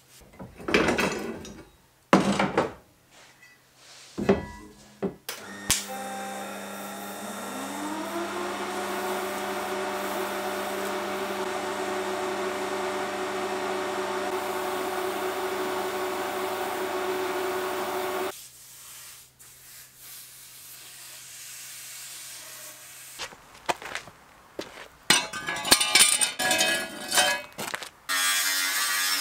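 Metal knocks and clinks from workshop handling, then about twelve seconds of steady welding-arc buzz with a tone that rises a couple of seconds in and holds until it cuts off. Near the end comes metal clatter, then an angle grinder starts running.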